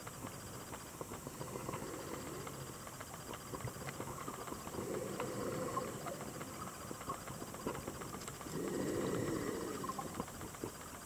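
Underwater sound picked up by a camera held below the surface: a continuous crackle of small clicks and ticks, with a couple of swelling rushes of water noise, each about a second long.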